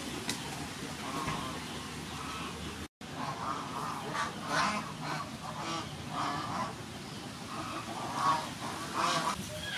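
Poultry calling: many short repeated calls in a row, with a brief dropout just under three seconds in.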